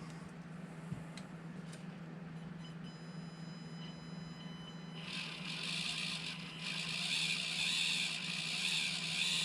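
Axial SCX24 1/24 crawler's small electric motor running its freshly greased drivetrain gears slowly to spread the grease. A faint high whine starts a few seconds in. About halfway through it turns into a louder, high-pitched whir that cuts off suddenly near the end.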